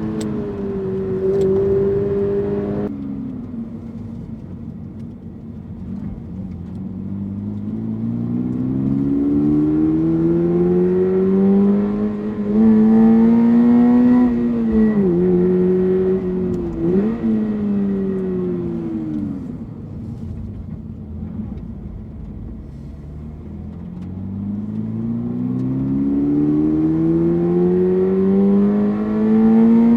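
Toyota GR86's 2.4-litre flat-four boxer engine under way. It holds a steady high note that drops off about three seconds in. The revs then climb from about six seconds and break briefly twice in the middle, then fall away. They climb again over the last several seconds.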